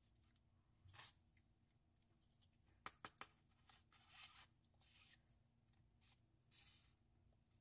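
Faint scrapes and clicks of a plastic fork against a styrofoam food container: a handful of short strokes spaced about a second apart, with two sharp clicks close together about three seconds in.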